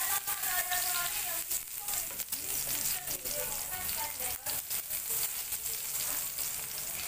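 Butter sizzling and crackling as it melts in hot oil in a nonstick frying pan, a steady hiss dotted with many small pops.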